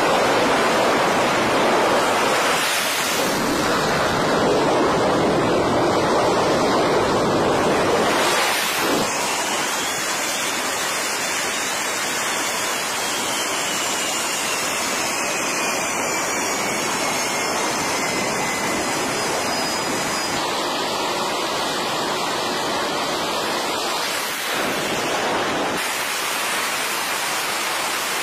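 F/A-18 Super Hornet jet engines running at high power on the catapult, run up for launch: a loud, steady roar. A faint falling whine passes through the middle, and the roar changes abruptly a few times.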